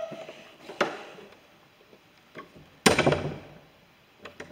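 A few sharp knocks against the wooden pews: a light one about a second in, then a louder one near three seconds that echoes round the stone church.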